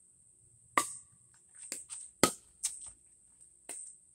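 Pickleball paddles hitting a plastic pickleball during a rally: two sharp pocks about a second and a half apart, the loudest sounds, with several softer ticks between and after.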